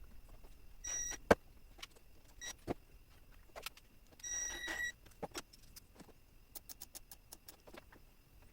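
Hand tools and metal parts being handled: scattered sharp clicks, knocks and clinks, with two short high-pitched squeaks or rings, one about a second in and a longer one about four and a half seconds in.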